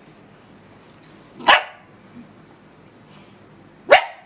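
Puppy giving two single sharp barks, about two and a half seconds apart, at her own reflection in a laptop screen.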